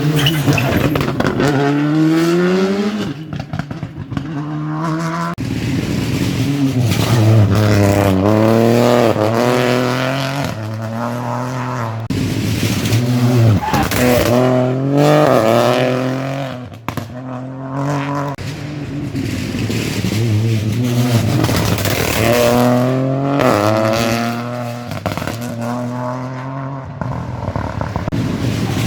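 Rally cars driven flat out one after another, each engine revving hard and climbing through the gears. The pitch rises on each gear, then drops back at every shift.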